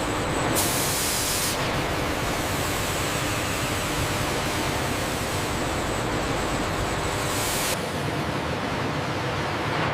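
Steady industrial machinery noise of a sawmill production line, an even roar with no distinct strokes or rhythm. It is briefly brighter and hissier from about half a second to a second and a half in.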